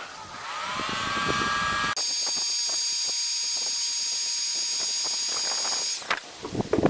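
Electric heat gun switched on, its fan whine rising as it spins up. About two seconds in it jumps to a higher, steady whine, then cuts off abruptly about six seconds in.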